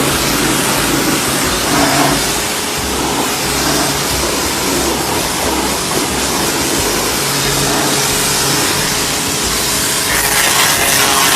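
Total TGT11246 2500 W electric pressure washer running, its induction motor humming under the loud, steady hiss of the high-pressure water jet. The hiss turns brighter near the end.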